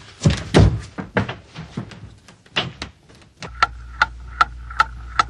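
Time bomb's clock ticking steadily, about two and a half ticks a second over a low hum, starting about three and a half seconds in. Before it comes a run of irregular knocks and thuds.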